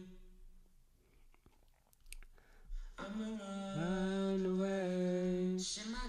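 Dry solo male lead vocal, his own singing with no reverb or delay: a held note dies away, then after a quiet gap of about two and a half seconds a phrase of long held notes stepping up and down in pitch begins, with a short hiss near the end.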